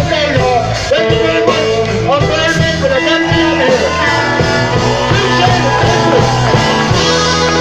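Live blues band playing, with guitar under a lead line that bends up and down in pitch.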